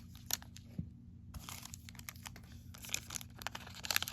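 A trading card pack wrapper being torn open and crinkled in the hands, with sharp crackles and a dense stretch of crinkling about halfway through.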